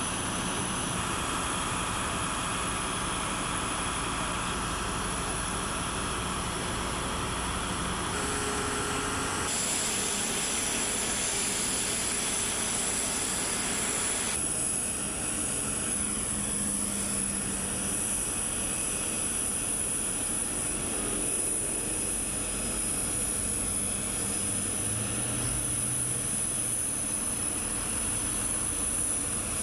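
Steady engine and machinery noise with a constant high-pitched whine. The sound changes abruptly twice, about ten and fifteen seconds in.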